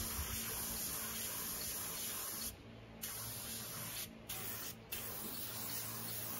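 Compressed-air spray gun hissing steadily as it sprays a clear finish onto a wooden chopping board. The trigger is let go three times in the middle, the first for about half a second and the other two more briefly.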